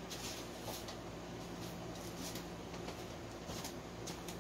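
Quiet room tone: a steady low hum with faint, scattered soft rustles and clicks.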